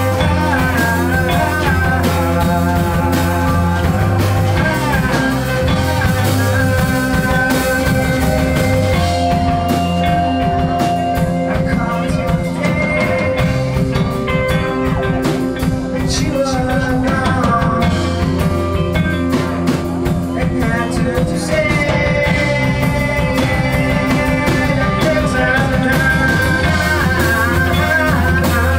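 A rock band playing live, with electric guitars over bass and a drum kit, loud and continuous.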